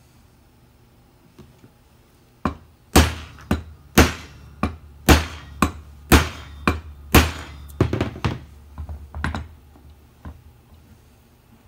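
Ball-peen hammer striking a steel pin punch to drive a press-fit pin out of an AK-47: a run of about fifteen sharp hammer blows, roughly two a second, starting a couple of seconds in and thinning out near the end. The pin is already moving under the blows.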